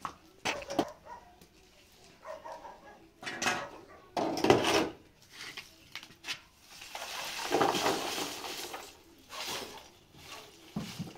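Knocks and clatter of a metal ash tray and a plastic crate being handled, with a longer rushing scrape about seven seconds in.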